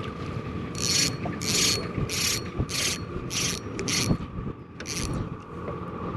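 Fishing reel whirring in about seven short bursts, roughly two a second, as a hooked crappie is brought in.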